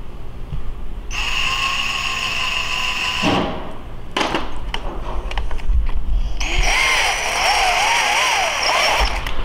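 Cordless drill driving a 10 mm tap through holes in a metal plate (power tapping). There are two runs of steady motor whine, one from about a second in to about three seconds and another from about six and a half seconds until near the end, its pitch wavering, with a few clicks between them.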